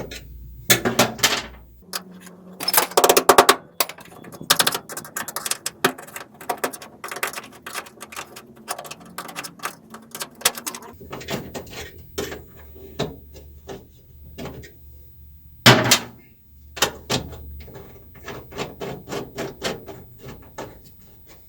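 A loose steel anchor plate clanking and scraping against the sheet-metal body panels of a 1966 Mustang as it is fished into the cavity between the inner and outer panels. Irregular knocks and rattles, loudest about a second in, around three seconds and again about three-quarters of the way through.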